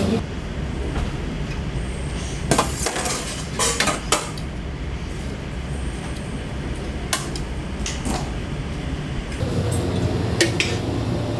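Kitchen clatter: utensils and dishes clinking and knocking in scattered bursts, a cluster of them a few seconds in and single knocks later, over a steady low hum.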